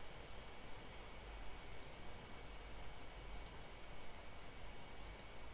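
A few faint, scattered clicks of a computer mouse and keyboard over a low steady hiss.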